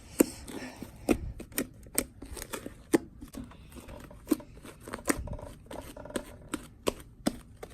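Homemade slime with small beads mixed in, squished and stretched by hand, giving irregular sharp clicks and pops a few times a second.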